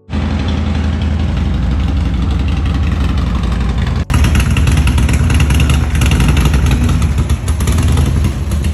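Harley-Davidson Road Glide V-twin engine running loud and steady, with a brief break about four seconds in; it is running again after a cut wire in the harness was soldered.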